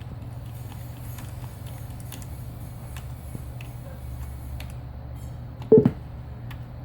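A computer making a short, loud pitched noise near the end, over a steady low hum and faint scattered ticks.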